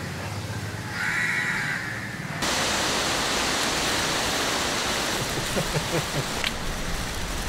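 A single bird call about a second in over a low hum, then, after a sudden change, a steady outdoor hiss.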